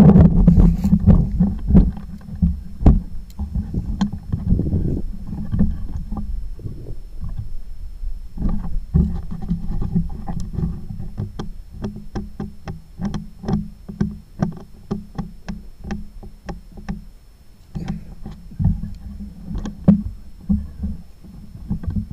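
Wind rumbling on the microphone, with a loud sharp crack right at the start and a run of light quick clicks, about three a second, through the second half.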